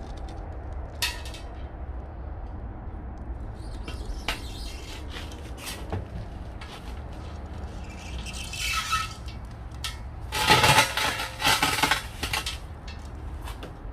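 Steel parts of a homemade wood stove being handled: scattered metal clinks and knocks, then a louder scraping rattle of metal about ten seconds in, over a low steady hum.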